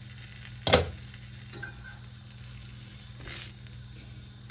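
Glass frying-pan lid set down with a sharp clatter about a second in, over the faint sizzle of lavash frying in a cast-iron pan. A second, softer clatter a little after three seconds in.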